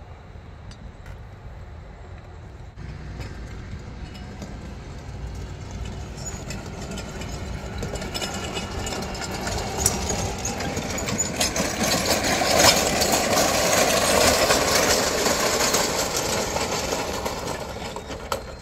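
Robotic golf-ball picker towing a gang of ball-picking rollers and baskets over grass and gravel: a rattling, crunching clatter that grows steadily louder as it comes closer, loudest in the second half, with one sharp click about two-thirds of the way through.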